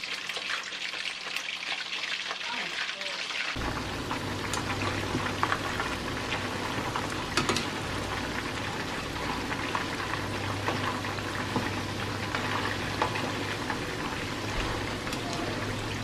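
Fish pieces deep-frying in hot oil in a nonstick pan, a steady dense crackle and sizzle with occasional sharper pops and clicks.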